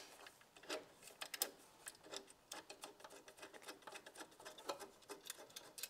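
Faint, irregular small metal clicks and ticks, several a second, as a hex-head bolt with its washer is turned in by fingers on a steel bracket.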